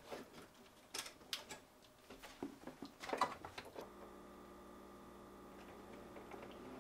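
Faint plastic clicks and handling noises as a refrigerator's wire-harness electrical connector is plugged back together. About four seconds in, a faint steady hum of several held tones begins.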